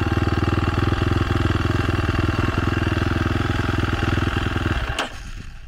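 KTM motocross bike's engine running steadily at idle with a fast, even pulse, then cutting off about five seconds in.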